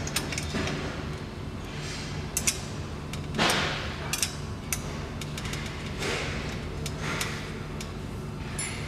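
Metal parts of a folding-table storage trolley being handled and fitted: sharp clicks and knocks, a double knock about two and a half seconds in, and several short sliding scrapes, over a low steady hum.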